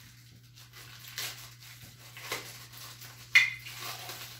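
Rustling and light plastic clattering of a new Shark Rocket stick vacuum's parts and packaging being handled during unboxing, with one sharp click about three and a half seconds in.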